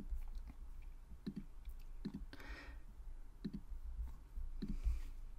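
Computer mouse clicking, about five separate clicks spaced roughly a second apart, made while page elements are selected and deleted in a page editor.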